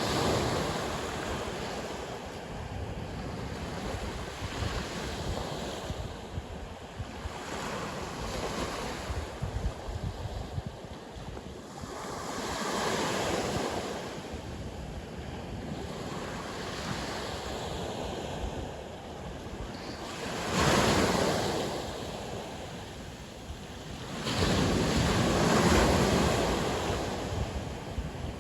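Sea waves breaking and washing ashore, swelling in a rush every few seconds, the loudest surges about two-thirds of the way in and near the end, over a low rumble of wind on the microphone.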